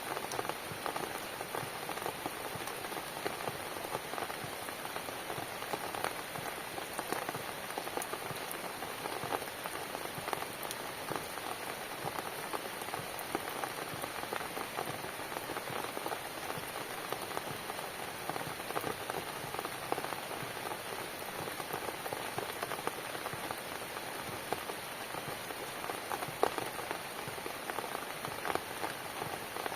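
Steady rain falling and pattering on a surface, with many small drop ticks and an occasional louder drip.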